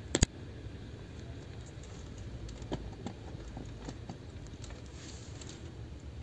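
Homemade copper-coil alcohol stove burning with a steady low rushing flame, with scattered light clicks and one sharp click just after the start.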